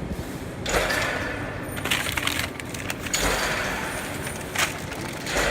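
MIG welder arc welding: an uneven crackling hiss in stretches of about a second, with sharp crackles.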